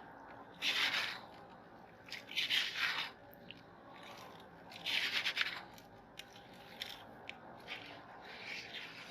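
Candy being crunched and scraped in a meat grinder: three rough rasping strokes about two seconds apart, with scattered small clicks between them.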